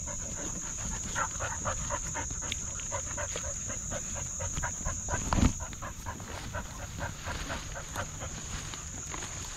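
Close-up rapid panting of a running dog, in quick regular breaths about four a second. A steady high insect whine runs underneath, and there is one louder thud about five and a half seconds in.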